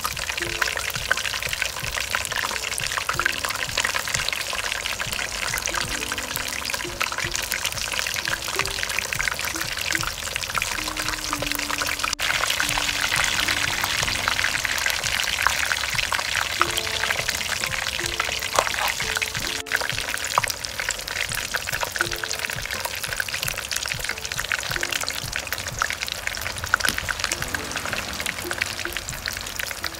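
Whole pork leg deep-frying in a pot of hot oil: a steady crackling sizzle with many sharp pops and spits, under soft background music.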